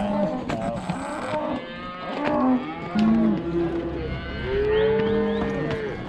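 Cattle and calves mooing and bawling, a string of separate calls from several animals, with one long call about five seconds in.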